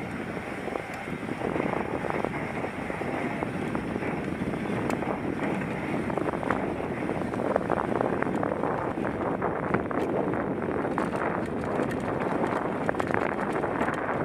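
Mountain bike rolling down a dry dirt and loose-rock ridge trail: steady tyre noise with many small clicks and rattles over the rough ground, and wind buffeting the helmet-mounted microphone.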